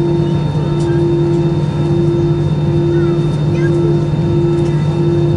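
Airbus A320-214's CFM56 turbofan engines idling, heard inside the cabin as a steady drone with a humming tone that dips briefly every second or so.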